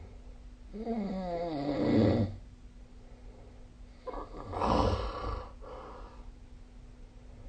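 A sleeping person snoring. A rattling, wavering snore runs for about a second and a half about a second in. A second, breathier snoring breath follows about four seconds in.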